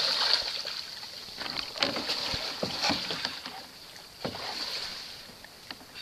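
Kayak paddle strokes splashing and churning the water, loudest at the start and easing off, with scattered short knocks.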